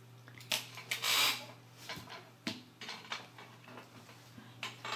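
Paper leaflet rustling briefly about a second in as it is handled, with scattered light clicks and taps of small plastic toy car parts on a table.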